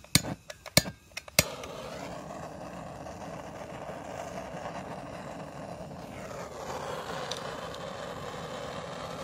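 Handheld gas torch: the igniter clicks three times in the first second and a half, then the flame catches and runs with a steady hiss.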